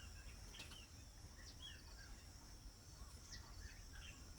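Faint wild birds chirping: scattered short chirps and quick falling notes over a steady high drone.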